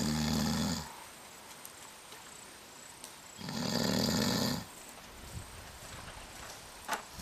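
Heavy snoring: one snore at the start and another about three and a half seconds in, each lasting about a second, with the next one just beginning at the end. A brief click comes shortly before it.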